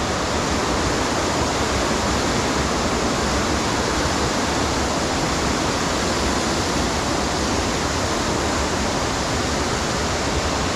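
Waterfall rushing: a steady, loud roar of falling water without a break.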